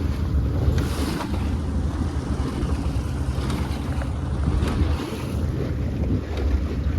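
Wind buffeting the microphone over the sound of sea water washing around a small boat on the open ocean.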